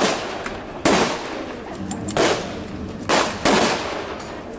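Blank gunfire in a staged battle: four separate loud shots at uneven spacing, each a sharp crack that trails off with an echo.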